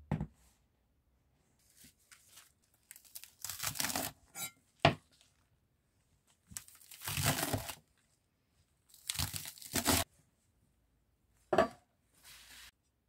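Kitchen knife slicing through a crisp head of lettuce on a wooden cutting board: three spells of quick crunching cuts, with a sharp knock on the board now and then, one as the board is set down at the very start.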